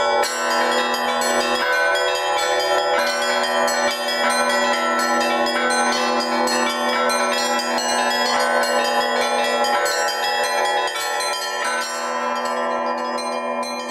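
Russian Orthodox church bells rung by hand in a belltower: a fast, dense peal of rapid strikes on the small bells over the sustained ringing of larger bells.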